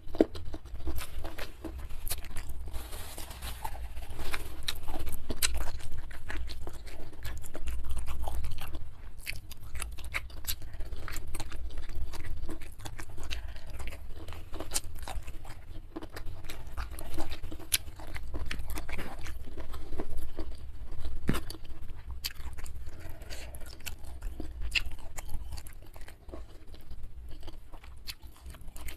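Close-miked chewing of a mouthful of food, with frequent sharp crunches throughout.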